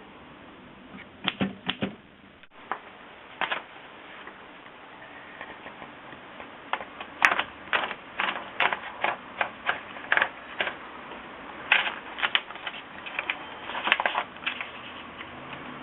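Keys of a 1920s Royal Portable manual typewriter being struck. A few scattered keystrokes come in the first few seconds, then a fast run of typing clacks from about seven seconds in until near the end.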